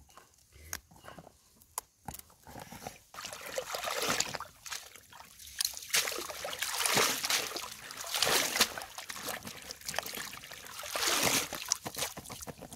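Water sloshing and splashing as a wicker basket full of green peppers is plunged and swished back and forth in a shallow stream, starting about three seconds in, in repeated surges, then water running off through the weave as the basket is lifted near the end.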